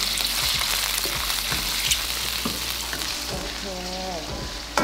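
Squid and garlic sizzling in hot oil in a wok, with a metal spatula scraping and clicking against the pan as they are stir-fried. Right at the end, a sharp metallic clang rings on briefly.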